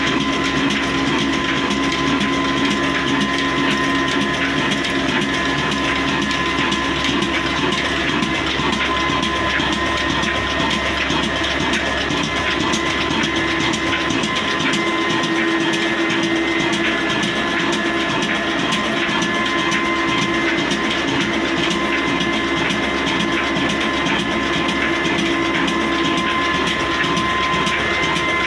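A 26 hp Hussain Company 'kala engine', a single-cylinder stationary diesel, running steadily with an even, rhythmic mechanical clatter.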